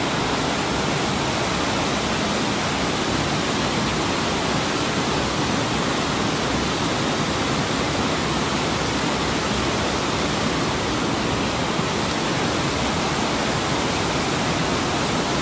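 Cave waterfall spilling over a series of tiered stone pools: a steady rushing of falling water, unchanging throughout.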